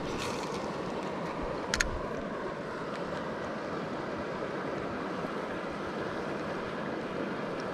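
Steady rush of flowing river water, with one short, sharp click about two seconds in.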